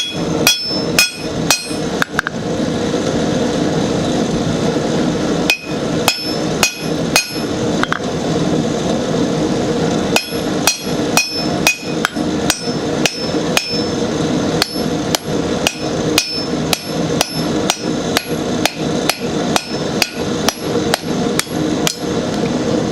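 Hand hammer striking a hot steel bar laid over a hot cut hardy in the anvil, cutting the twisted bar to length; each blow rings sharply. A few quick runs of blows with pauses, then steady blows at about two a second through the second half, over a constant rushing noise.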